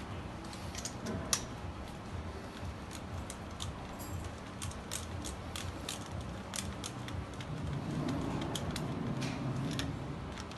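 Irregular light metallic clicks and clinks of a compression tester's hose and threaded adapter being handled and unscrewed at the engine between cylinder readings. A louder, lower handling rustle comes in from about eight seconds.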